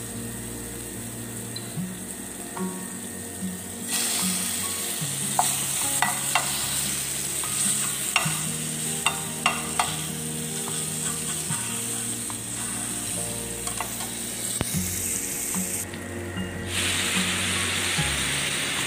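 Chicken fat sizzling as it renders in a hot frying pan, stirred with a spoon that scrapes and knocks against the pan. The sizzle grows louder about four seconds in, and near the end a louder rush of sizzling comes as the raw chicken pieces go into the hot fat.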